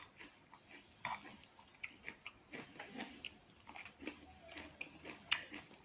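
Quiet chewing of a mouthful of vegetable salad: irregular small crunches and wet mouth clicks.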